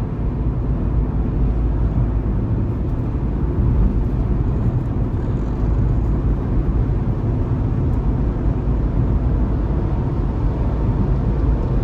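Jeep SRT's V8 engine and road noise while driving at a steady pace, a continuous low rumble.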